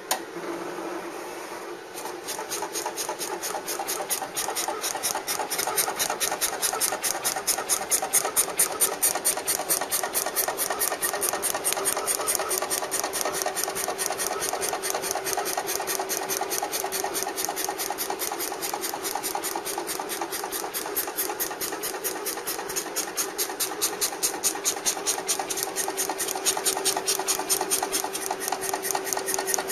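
Graphtec CE-5000 cutting plotter cutting a paper garment pattern: the machine runs with a rapid, even pulsing that starts about two seconds in. A steady hum joins partway through.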